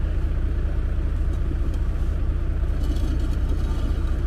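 The Volvo's engine running steadily at idle, an even low drone with no changes in speed.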